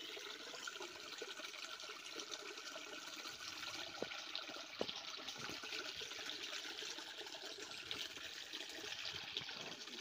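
Small stream running over stones, a steady trickling rush of water.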